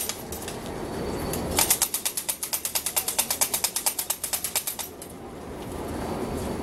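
Wooden ratchet rattle (matraca), the clapper sounded in Holy Week processions in place of bells, cranked in one rapid run of sharp clacks. There are about ten clacks a second for about three seconds, starting about a second and a half in.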